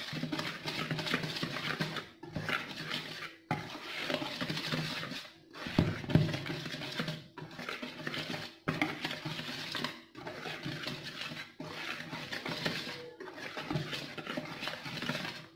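A wire whisk stirring dry flour in a plastic mixing bowl: a scratchy rustling with light clinks of the wires against the bowl. It stops for a moment every second or two.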